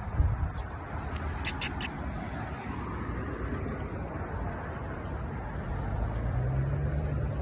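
Steady outdoor background noise with a low hum, like distant traffic, and a few brief clicks about a second and a half in.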